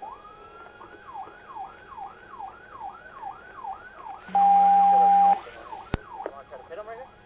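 Police car siren in a fast yelp: pitch sweeps repeating about twice a second. Just past four seconds in, a loud steady tone cuts across it for about a second, followed by a sharp click.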